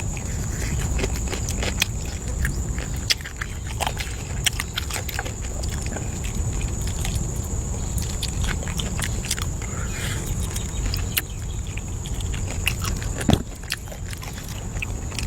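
A person eating: chewing and biting food, with scattered small clicks and knocks, one louder knock near the end, over a steady high-pitched hum and a low rumble.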